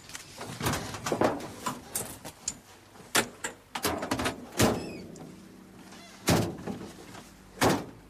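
A van's doors banging shut amid knocks and thuds as it is hurriedly loaded: a run of sharp bangs, the loudest four spread through the second half.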